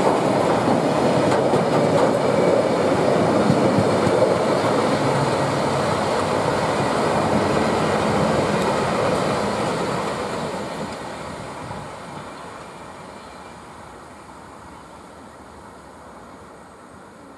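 Wagons of a passing engineers' train, carrying rails and a track machine and followed by box wagons, running over the rails with a steady rolling rattle. About ten seconds in the sound fades away as the tail of the train draws off.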